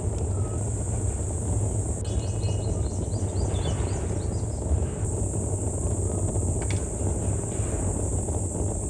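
Outdoor ambience: a steady low rumble and a constant high hiss, with a short run of bird chirps about two to three seconds in.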